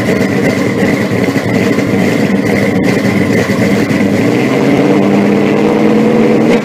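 An engine running loudly and steadily.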